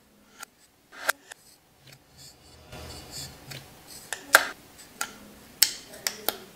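A finger poking and pressing into glue-free slime in a cup, making irregular sticky clicks and pops, with the sharpest ones in the second half.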